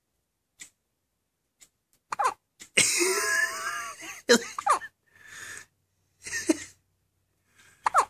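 A baby's hiccups: a series of short, sharp hiccups, faint at first and louder from about two seconds in, with a longer, loud breathy vocal sound from about three to four seconds in.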